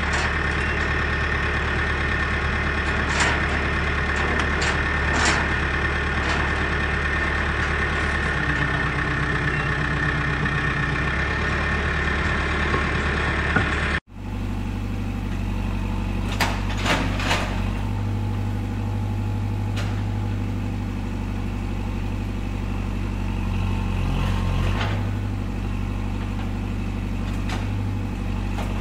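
Heavy engine running steadily, with a few faint clicks. About halfway through, the sound cuts out for an instant and resumes as a lower, steadier engine sound.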